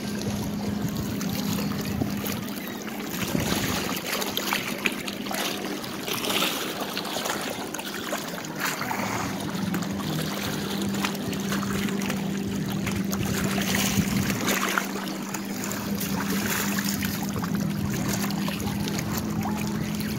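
Wind on the microphone and choppy lake water lapping at the shore, over a steady low hum.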